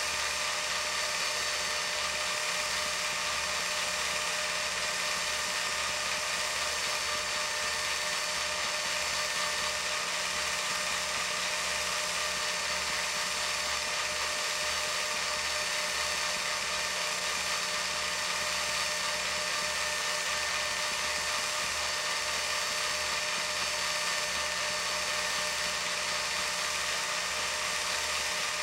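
Film projector running: a steady motor whir with a high whine and hiss, over a low pulsing rumble.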